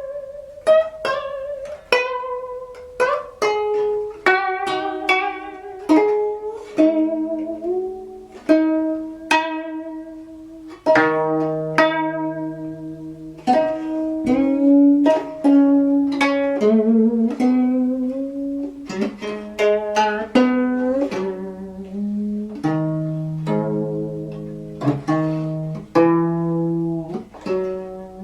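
Gayageum, the Korean plucked zither, played solo: single plucked notes ring and fade one after another, many wavering with vibrato or bending upward in pitch, with deeper sustained notes through the middle.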